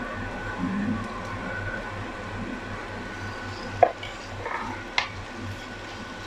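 Cubed raw chicken dropped into a frying pan of onions and garlic, sizzling in oil and stirred with a spatula, which knocks sharply against the pan twice in the second half. A steady hum from the kitchen exhaust fan lies underneath.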